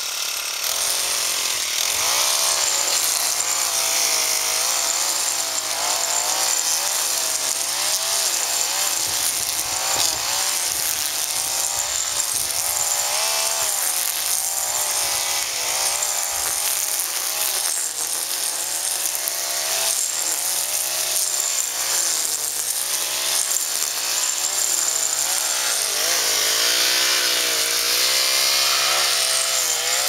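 String trimmer running continuously, its whine rising and falling as the revs change.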